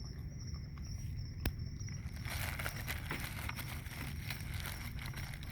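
Crickets trilling steadily at night, with one sharp click about a second and a half in, then a dense crackly rustling starting about two seconds in.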